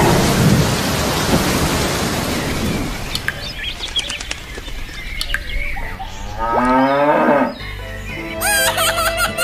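A cow mooing once, a long call that rises in pitch, after a loud rushing noise and a few short chirps. Music starts near the end.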